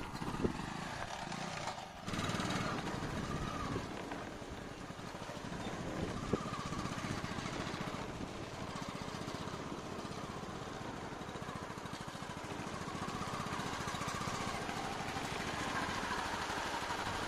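A motorcycle engine running steadily, dipping briefly about two seconds in, with a couple of short sharp clicks.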